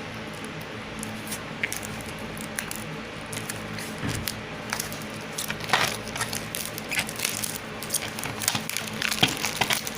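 Hands unwrapping and handling a plastic DVD case: scattered crinkles, taps and clicks of plastic, busier after the first few seconds.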